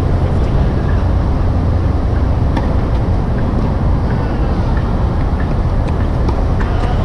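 Steady low rumble of background noise, with a few faint light knocks of tennis balls being struck with racquets.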